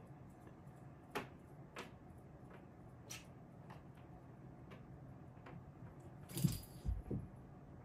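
Cat play on a carpeted cat tree: scattered light taps and clicks of paws batting a hanging toy, then a short run of heavier thumps near the end as a cat jumps down off the tree.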